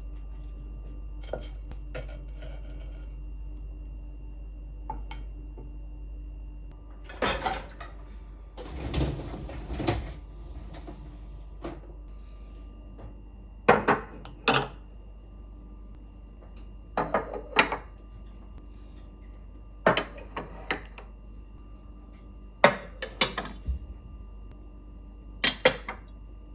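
Dishes and cutlery being handled in a kitchen: short clusters of clinks and knocks every few seconds, with a brief scraping stretch about a third of the way in, over a steady faint hum.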